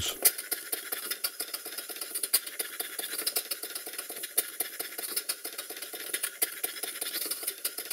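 Stuart No. 1 model steam engine running fast and smoothly: a rapid, even ticking beat from the exhaust and valve gear with a hiss.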